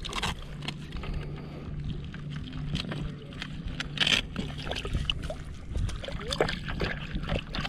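Water splashing and dripping as a speckled trout and a landing net are handled at the water's surface, with a sharper splash about four seconds in.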